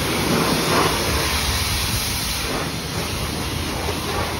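High-pressure wash wand at a self-serve car wash spraying water onto a car's bodywork: a steady, even spray noise.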